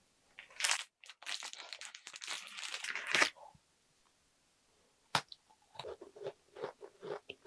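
A plastic snack wrapper being torn open and crinkled for a few seconds. After a short pause comes one sharp snap, then a run of crunching and chewing of a chocolate-filled cookie close to the microphone.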